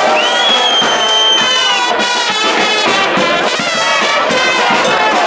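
Charanga brass band playing, trumpets and trombones together. A high note rises, is held for about a second and a half, and falls away near two seconds in.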